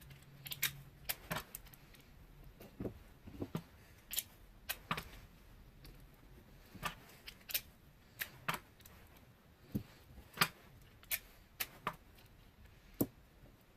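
Scattered sharp clicks, taps and light rustles of tape and paper being handled as a sheet of paper is taped down onto a board.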